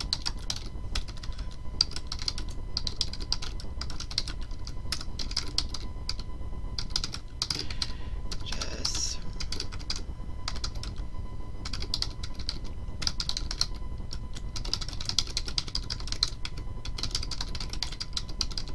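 Typing on a computer keyboard: irregular runs of quick keystrokes with a few short pauses, over a low steady hum.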